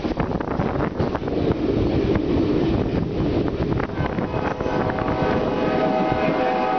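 Rumble and rattling clatter of a moving freight train heard from inside an open boxcar, with wind on the microphone. About halfway through a steady held tone with several overtones joins in and carries on.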